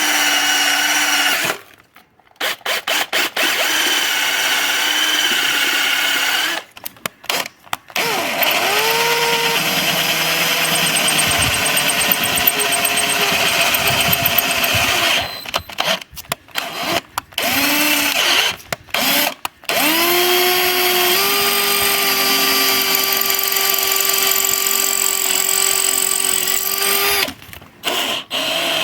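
Electric power tool motor, such as a drill, running in several spells with abrupt stops and short trigger blips between them. Its whine rises in pitch as it spins up and then holds steady.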